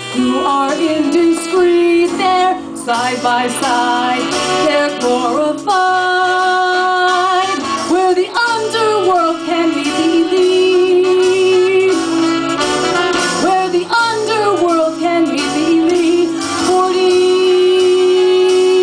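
A woman singing a melody through a microphone and PA, with instrumental accompaniment underneath. She holds a long steady note for the last two seconds or so.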